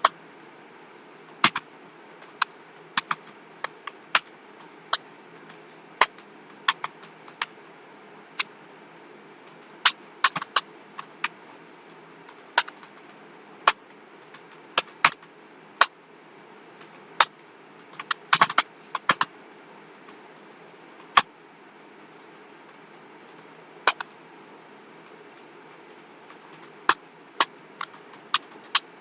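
Computer keyboard keystrokes clicking at an uneven, sparse pace: single taps about a second apart with a few quick clusters, over a faint steady hum.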